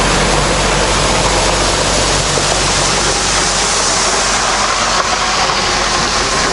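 RK37 compact tractor's diesel engine running steadily as the tractor drives off along a gravel driveway, fading after about two seconds. A loud, even rushing hiss carries on throughout.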